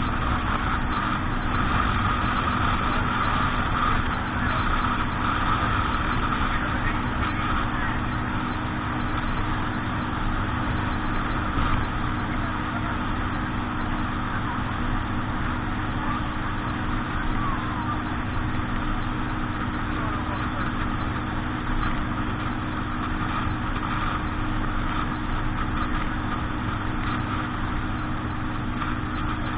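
Boat engine running steadily at an even speed, with a constant rushing noise over it.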